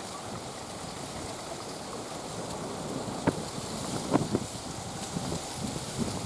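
Steady wind rushing across the microphone, with a few short sharp knocks a little after halfway.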